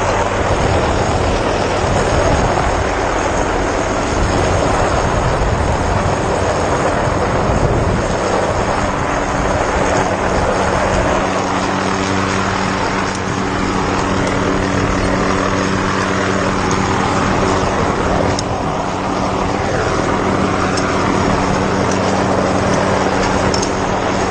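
Helicopter running, a steady loud drone of turbine and rotor with a few constant low tones.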